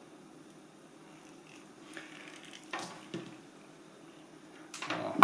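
A few light clicks and knocks from tools and cable being handled on a work surface, with a sharper, louder knock at the very end.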